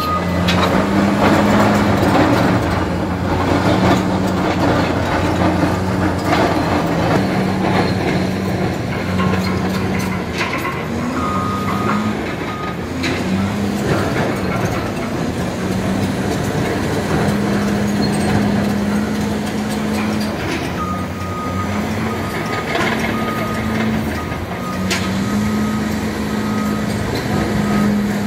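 Diesel engines of heavy earthmoving machines, a Cat crawler bulldozer and a Cat wheeled soil compactor, running under load, their pitch rising and falling as the machines work. A reversing alarm beeps in stretches, about halfway through and over the last quarter, and occasional knocks sound over the engine noise.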